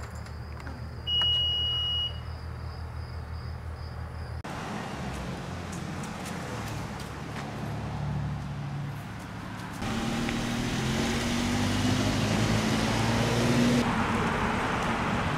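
Car sounds: a steady low engine hum with a single high electronic beep lasting about a second near the start, then louder engine and road rumble.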